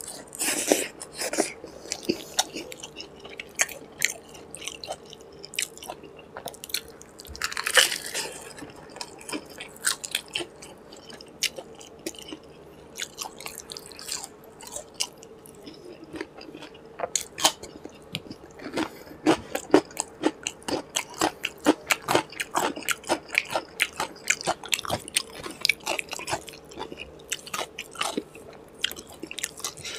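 A man chewing and biting food close to the microphone, starting on a mouthful of puri (deep-fried bread), with wet smacks and crunches. A louder bite comes about eight seconds in, and the chewing clicks come quick and dense through the second half.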